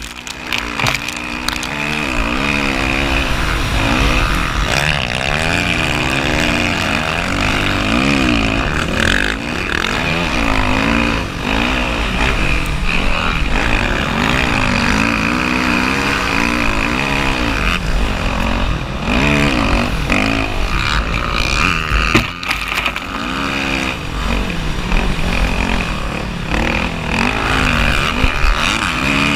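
Dirt bike engine revving up and down over and over as the bike rides across sand dunes, with wind noise rushing over the microphone.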